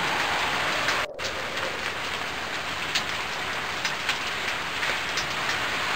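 Heavy rain falling steadily, a dense hiss of drops with scattered louder drop ticks, briefly dipping about a second in.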